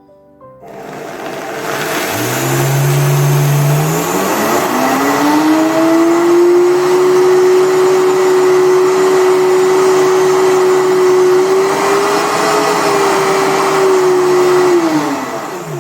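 Optimum 9200A high-speed blender grinding one cup of oats into flour on its 20-second program. The motor spins up with a rising whine over the first few seconds, runs steadily at full speed, then winds down near the end.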